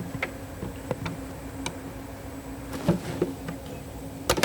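A steady low electrical-sounding hum, with scattered light clicks and knocks of hand work on steering parts. The sharpest knock comes near the end.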